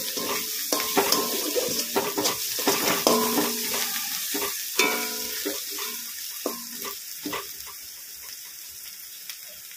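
Masala sizzling in oil in a kadai while a spatula stirs and scrapes against the pan in frequent sharp strokes, some of them ringing briefly. The strokes thin out and the sizzle gets quieter in the last few seconds. The masala is nearly fully fried down.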